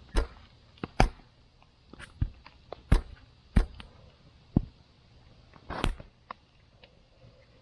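Wood campfire crackling, with sharp irregular pops about every half second to second.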